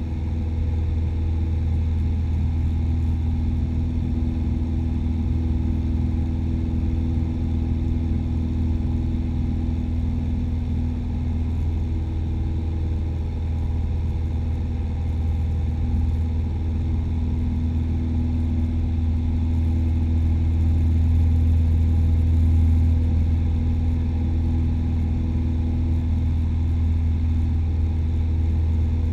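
Cessna 172's piston engine and propeller droning steadily in cruise flight, heard inside the cabin, swelling slightly about two-thirds of the way through.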